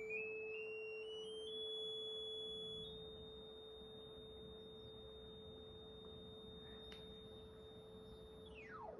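Electronic test tones: a steady pure tone near 440 Hz, with a higher tone that rises in small steps over the first three seconds, holds, then slides rapidly downward just before the end.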